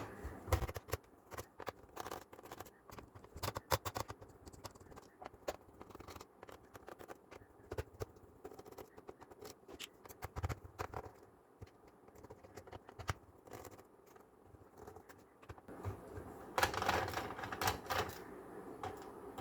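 Small Phillips screwdriver working screws out of a laptop's plastic base: irregular light clicks and scrapes of the bit on the screw heads, with a denser run of scraping near the end.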